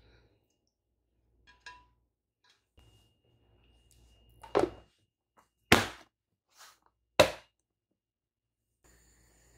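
Clear plastic food container with a snap-on lid being closed: a dull thud as the lid goes down, then a few sharp plastic snaps as it is pressed shut, the loudest two about a second and a half apart.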